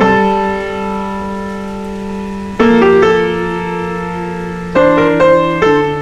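Background piano music: slow sustained chords that ring and fade, with new chords struck at the start, about two and a half seconds in, and a few in quicker succession near the end.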